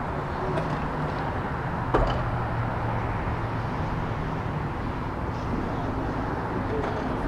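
Steady outdoor urban background rumble with a low hum, and a single sharp click about two seconds in.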